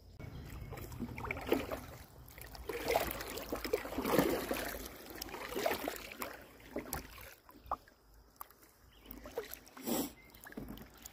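Kayak paddle strokes in river water: the blade dips and pulls in a run of uneven strokes, with water sloshing and splashing against the plastic hull of a Lifetime Tamarack Pro 103 kayak.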